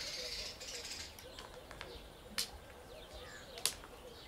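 Birds calling: faint high chirps and a low wavering cooing call that keeps going. Two sharp clicks come about two and a half and three and a half seconds in.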